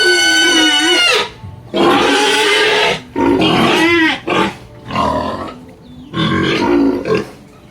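Pig calling: about five loud, long pitched cries, each up to about a second, with short gaps between. The calls weaken toward the end.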